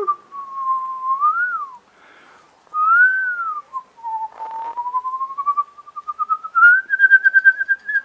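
A person whistling: a few short pure-tone glides that rise and fall, then a long whistle with a fast wavering pulse that climbs slowly in pitch from about four seconds in.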